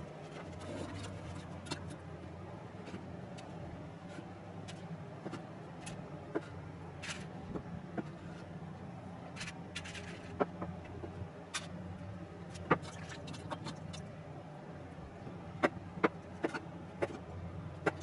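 Scattered light taps and clicks as slices of cooked sweet potato are set down on a woven bamboo basket, with a cluster of sharper clicks near the end as a metal tray is tipped over the basket, over a steady low hum.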